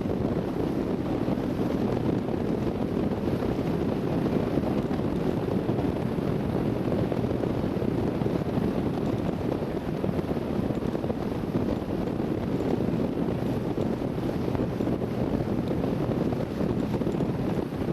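Wind buffeting the microphone over the steady drone of a boat under way, with a faint low hum from its engine.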